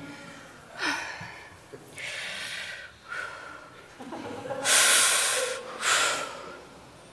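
A puppeteer's voice giving a series of breathy huffs and sighs, about five in all, the longest and loudest about five seconds in.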